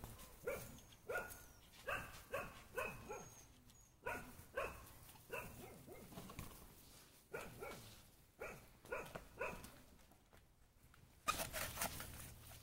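Puppies yapping in short, high barks while they play, often in quick runs of two or three. Near the end a burst of hissing noise covers them.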